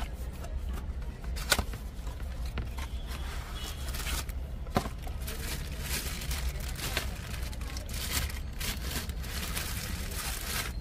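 Plastic packaging crinkling and rustling as hands handle a bagged wiring harness for a car stereo, with scattered sharp clicks, over a steady low rumble.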